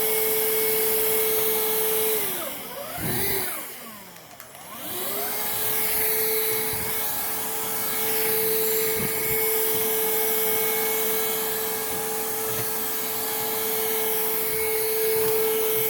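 Hoover React cordless stick vacuum running with a steady motor whine. About two seconds in it winds down, then spins back up a few seconds later and runs steady again.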